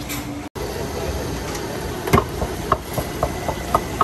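Busy crowd chatter and street noise, with a quick run of short, sharp knocks starting about halfway through.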